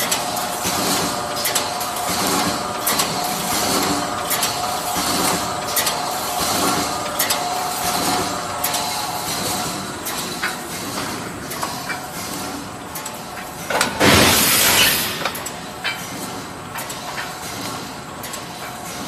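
Automatic wire mesh welding machine running: a steady hum with repeated metallic clicks and clinks from its welding and feed mechanism. About two-thirds of the way through comes a loud rushing hiss lasting about a second.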